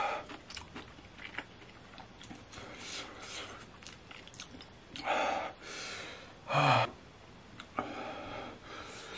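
A man blowing and panting hard through his open mouth, several noisy breaths a couple of seconds apart, from the burn of extremely spicy noodles, with a short pained groan about six and a half seconds in and a few small mouth clicks.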